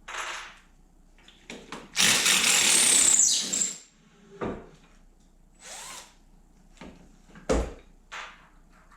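Cordless power drill run in one burst of about a second and a half, its motor whine falling as it spins down, used to take apart a wooden bench's bolted joints. A shorter burst comes at the start, and a few knocks and clunks of handling follow.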